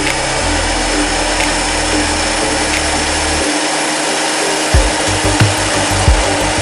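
Thickness planer running steadily, a loud even whirring hiss from its motor and cutterhead with no board being cut. Background music with a low, regular beat comes in about five seconds in.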